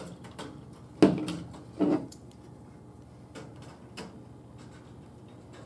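Pliers working chicken wire against a wooden shelf frame: two sharp clacks with a brief ring, about one and two seconds in, then a few light metallic clicks.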